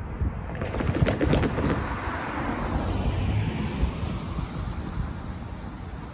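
A car drives over the railroad crossing and passes close by. Its tyres clatter several times over the rails in the first two seconds, then the tyre and engine noise fades away.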